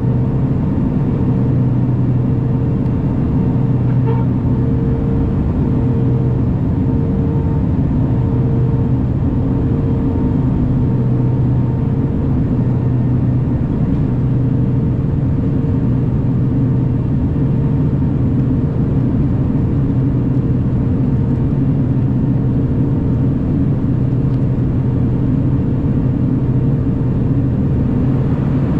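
Cabin drone of a BAe Jetstream 41's twin Honeywell TPE331 turboprop engines and propellers in cruise flight: a steady low hum over a rumble, with a higher tone that swells and fades about once a second.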